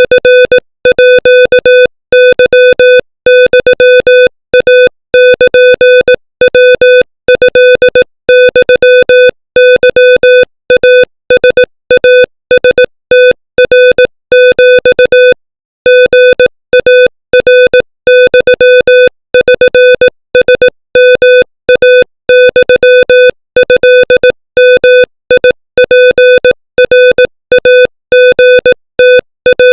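Morse code sent at 25 words per minute as a single steady beep tone keyed on and off in quick dots and dashes, with a slightly longer pause about fifteen seconds in.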